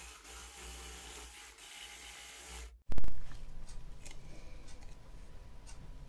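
Electric hand blender with a whisk attachment whipping eggs and sugar in a plastic cup toward stiff peaks. The hum cuts out for a moment just before the three-second mark and comes back with a sudden loud start.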